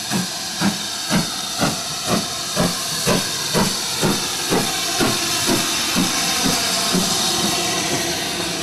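BR Standard Class 7 'Britannia' two-cylinder steam locomotive working past under power: evenly spaced exhaust chuffs about two a second over a constant hiss of steam. The chuffs fade out near the end, leaving the hiss.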